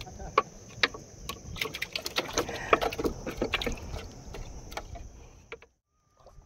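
Irregular light clicks and knocks, several a second at their busiest, over a steady high hiss; the sound cuts out abruptly near the end.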